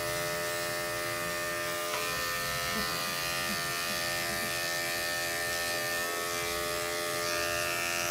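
Electric dog grooming clipper running with a steady buzz.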